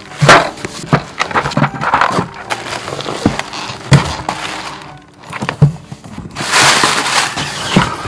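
Plastic air-cushion packaging crinkling and rustling, with cardboard boxes scraping and knocking inside a cardboard shipping carton. There are several sharp knocks and a long spell of crinkling near the end.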